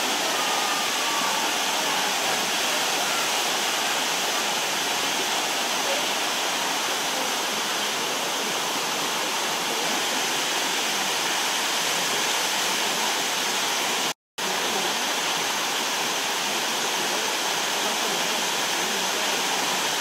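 Water running steadily down the rock cascades of Bua Tong waterfall, an even rush with no change; the sound cuts out completely for a split second about two-thirds of the way through.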